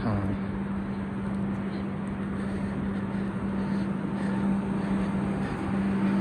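A steady, low mechanical hum of one constant pitch, over the general noise of a city street.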